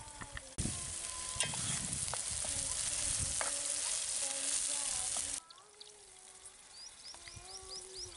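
Onions, green chillies and ginger-garlic paste sizzling in an aluminium pot over a wood fire while a ladle stirs them, with scattered scrapes. The sizzle cuts off suddenly about five seconds in, leaving a quick run of short high chirps from a bird near the end.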